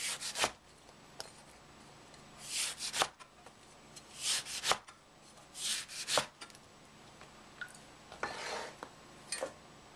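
A cleaver slicing through a whole orange down onto a cutting board: each cut is a short rasp through the peel and flesh ending in a sharp tap on the board. There are about six cuts at uneven intervals.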